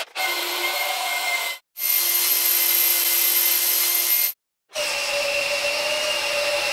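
Cordless drill running steadily as it drives the welding table's elevation system through reduction gearing, chains and screw shafts, with a steady whine over the motor noise. It comes in three stretches, each cut off abruptly.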